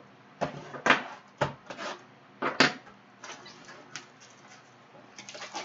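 Cardboard trading-card boxes set down and knocked on a wooden tabletop: about five sharp knocks in the first three seconds, then lighter handling noises as the boxes are shifted.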